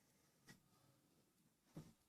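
Near silence, with two faint short knocks: one about half a second in and a slightly heavier one near the end.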